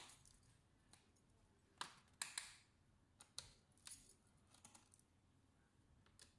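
Small screwdriver turning out the screws of a laptop's bottom cover: a handful of short clicks and scrapes, mostly in the middle.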